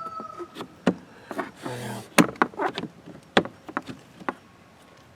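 Irregular knocks and taps as a part is handled and worked back into place in an RV refrigerator's rear access compartment, with a brief rustle about two seconds in.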